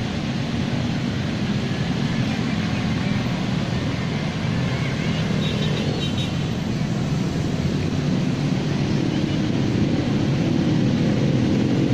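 Steady low rumble of road traffic and idling engines, slowly growing louder toward the end.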